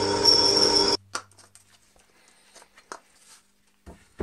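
Benchtop drill press running as it drills a steel ring, with a hiss of aerosol spray onto the bit, cut off abruptly about a second in. Then a few faint clicks and two knocks near the end as a part is set down on a wooden workbench.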